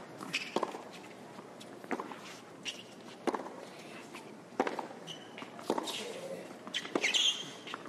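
Tennis rally on a hard court: a ball struck back and forth by racket strings, a sharp pock about every one to one and a half seconds.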